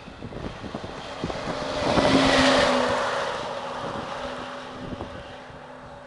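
Fire engine driving past: engine and tyre noise builds to a peak about two seconds in as it passes, its engine tone dropping slightly, then fades as it drives away. Wind buffets the microphone.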